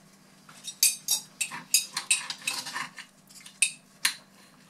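Metal cutlery clinking and scraping on glass: a knife and fork cutting food on a glass plate and a fork rattling in a glass jar of pickled eggs, in a string of short, sharp, irregular clicks.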